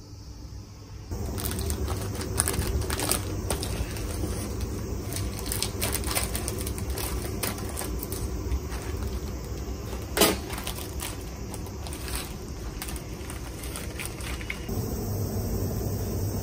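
Scissors snipping open a plastic cookie bag, the wrapper crinkling and crackling with many small clicks and one sharper click about ten seconds in. Near the end this gives way to a steady rush of wind on the microphone.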